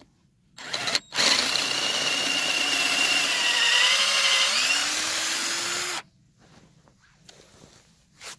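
Cordless drill boring a hole into the end grain of a wooden log. A short burst comes about half a second in, then about five seconds of steady drilling, the motor's pitch rising near the end before it cuts off suddenly.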